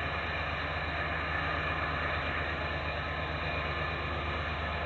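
Diesel locomotives at the head of a CSX freight train running as they come out of a tunnel toward the listener: a steady low engine drone with a hiss of noise above it, slowly getting louder.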